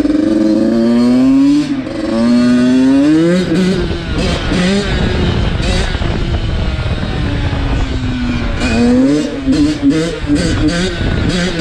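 Dirt bike engine revving hard, its pitch climbing in two long rises in the first few seconds and again past the middle, then turning choppy and uneven, with sharp knocks near the end.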